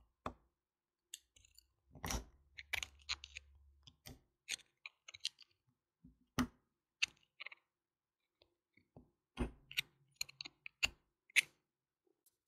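A series of irregular sharp clicks and light knocks, well over a dozen, unevenly spaced, with a faint low hum under some of them.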